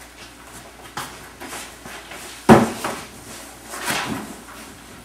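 A loud knock or thump about halfway through, with softer knocks before and after it.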